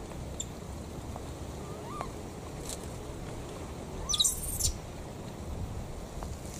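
Two short animal calls, each rising and then falling in pitch, about two seconds apart; the second comes with a sharp, high chirp.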